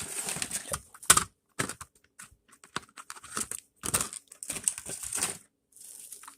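Irregular plastic clicks and taps as fingers press and push at the battery cover of a small plastic toll tag, trying to get it open.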